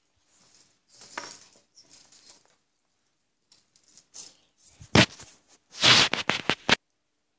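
Handling noise from a phone being moved and covered close to the microphone: soft rustling, then a sharp knock about five seconds in and a loud scraping burst with several clicks about a second later.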